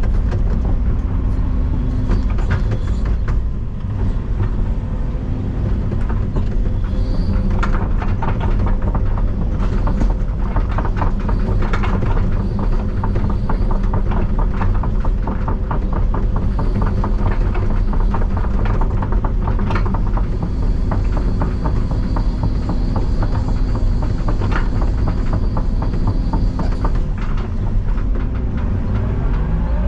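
Excavator's diesel engine running steadily under load, with rapid clattering and knocking of stone and the bucket for much of the middle stretch and a thin high whine in the later part.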